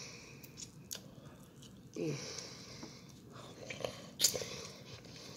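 Close-up eating sounds of chicken wings: chewing, biting meat off the bone and sucking sauce off fingers, with sharp mouth clicks and smacks, the loudest about four seconds in. A brief falling vocal sound comes about two seconds in.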